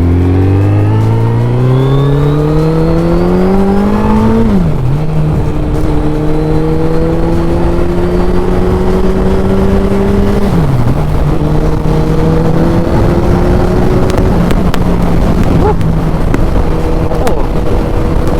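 Suzuki Hayabusa's inline-four engine pulling hard, its pitch climbing steeply, then upshifting with a quick drop in pitch about four and a half seconds in and again about ten and a half seconds in, the revs rising slowly again after each shift.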